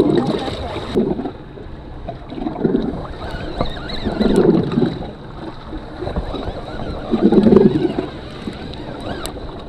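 Open-sea sound aboard a small drifting boat: water lapping against the hull and wind on the microphone, coming in uneven swells every second or two.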